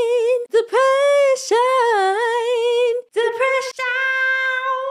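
A woman's voice sings the word "depression" unaccompanied, over and over, in long drawn-out notes that waver. The last note is held steady near the end.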